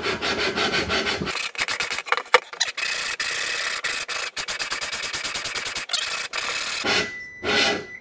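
Cast-iron VW Beetle cylinder barrel being twisted back and forth by hand against the engine case's cylinder seat with valve-grinding compound between them: a rapid, gritty metal-on-metal rasping in quick repeated strokes. This lapping evens out high spots on the case's seating surface.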